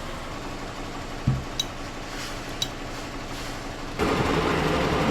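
Embroidery machine running steadily as it stitches, with a couple of light clicks in the middle; the sound steps up, louder and fuller, about four seconds in.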